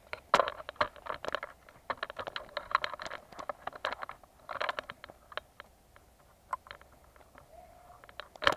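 Footsteps crunching and rustling through dry leaf litter and twigs, a dense run of short crackles through the first five seconds that thins out to scattered clicks after that.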